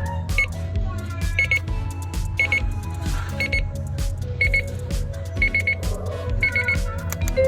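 Seikyo Shimbun 55th-anniversary melody alarm clock going off: groups of short, high electronic beeps about once a second over a simple electronic melody.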